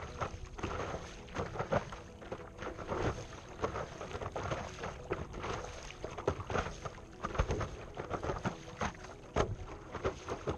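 Water sloshing and splashing against a stand-up paddleboard as it is paddled along, with irregular short splashes and knocks close to the microphone.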